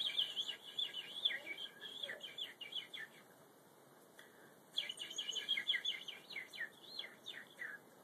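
Pet budgerigar chattering: rapid high chirps and warbling notes in two bouts of about three seconds each, with a pause of a second and a half between them.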